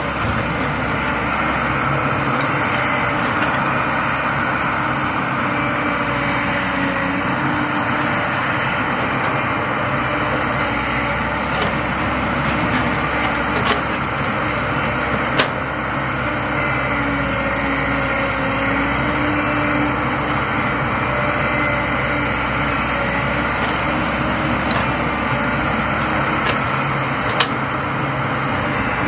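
Caterpillar 312C hydraulic excavator's diesel engine running steadily while digging and loading, its note dipping and rising with the load, with a few brief sharp knocks, the loudest about 27 seconds in.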